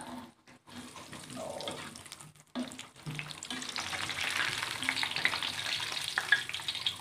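Flour-coated peanuts sizzling and crackling in hot oil as they are scooped out with a wire-mesh strainer, fried brown and done. The crackle is broken by short quiet gaps at first, then runs steadier and louder from about two and a half seconds in.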